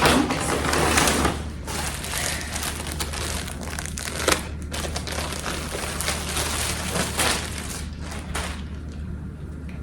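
Parcel packaging crinkling and rustling as it is opened and handled, with a few sharp crackles; the rustling eases off near the end.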